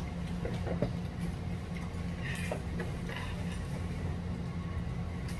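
Restaurant room noise: a steady low hum with a few light clicks of chopsticks and dishes at the table about half a second to a second in.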